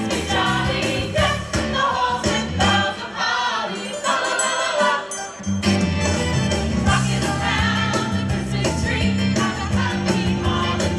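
A group of singers, men, women and children, singing together into microphones with instrumental backing. A steady bass line comes in strongly about halfway through.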